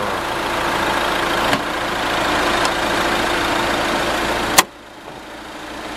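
Renault Master's twin-turbo diesel engine idling steadily with the hood open. About four and a half seconds in, the hood is slammed shut with a sharp bang, and the idle goes on much quieter and muffled.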